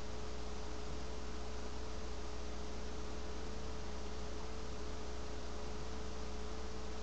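Steady electrical hum with a thin steady tone and hiss from the recording chain; no other sound.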